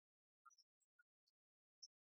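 Near silence, with a few faint, very short high-pitched clicks scattered through it.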